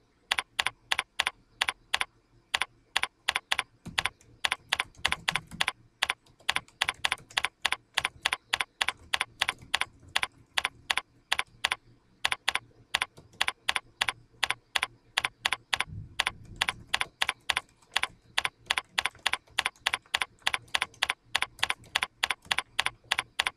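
Computer keyboard typing: a steady run of sharp key clicks, about three a second, with a few short pauses.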